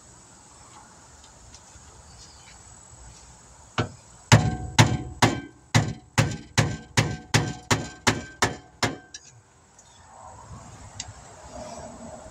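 Hammer blows on metal: a single strike, then a run of about a dozen quick ringing blows, roughly three a second, driving out a rusted, ungreased brake caliper slide pin that had seized in its bore.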